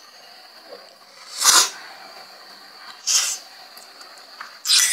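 A person slurping spicy cheese instant noodles (Samyang cheese fire noodles) off a fork: three short, loud slurps about a second and a half apart.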